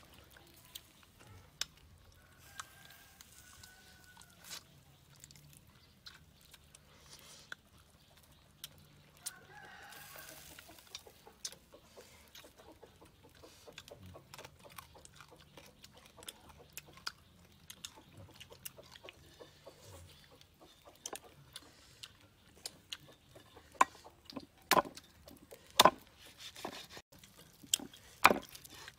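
Cleaver chopping grilled duck on a wooden chopping block: a few hard knocks in the last few seconds. Before that, faint chicken clucks and calls, with small clicks from eating.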